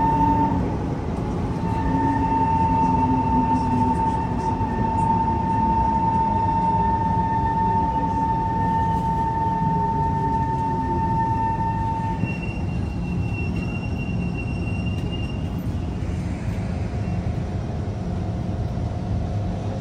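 Inside a Kawasaki C151 subway car running through a tunnel: a steady rumble of wheels on rails under a high whine held at one pitch. About twelve seconds in, the whine drops away and a fainter, higher tone takes over, followed by a lower steady tone.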